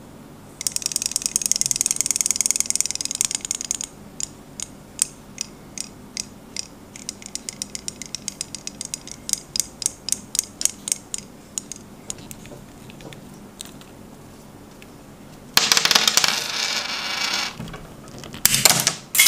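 Robotic toy fish's tiny motor and plastic gears driving its tail fin: a fast rattling buzz for about three seconds, then rows of quick plastic clicks. Near the end, two loud scraping bursts as the fish's plastic shell is pried apart with pliers.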